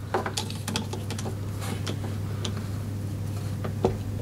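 Small metallic clicks and taps as a nut and wire connectors are worked by hand onto a mower battery's terminal screw, with a screwdriver held in the screw head. A steady low hum runs underneath.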